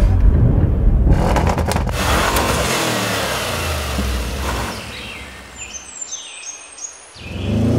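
Audi RS 7's twin-turbo V8 running loud and low, dying away over the first few seconds. Birds chirp in short falling calls. Near the end an engine rises in pitch as a car accelerates.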